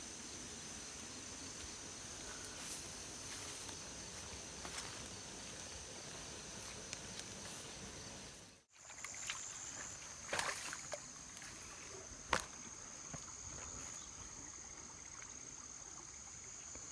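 Swamp ambience with a steady high insect drone. The sound drops out briefly about halfway through, then a few short sharp knocks or splashes follow.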